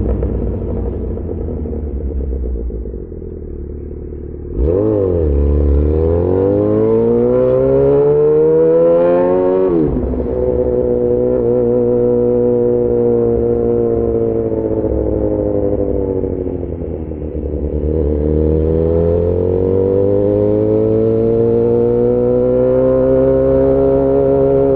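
Yamaha XJ6 S inline-four running through an SC-Project exhaust under riding load. It runs low and steady, then about five seconds in the throttle opens and the revs climb to a break near ten seconds. It holds steady, eases off near seventeen seconds and climbs again.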